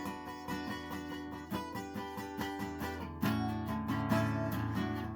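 Acoustic guitar strumming chords in a steady rhythm, an instrumental passage of a pop song; the strumming grows fuller and louder about three seconds in.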